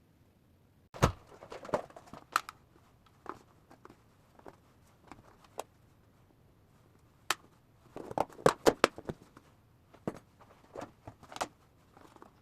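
Scattered clicks and knocks of household objects being handled in a small room, with a heavier thump about a second in and a quick run of clicks about eight seconds in.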